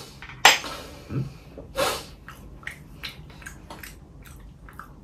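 A few sharp, breathy snorts through the nose, the loudest about half a second in, from a person tasting food. They are followed by a string of small, soft clicks.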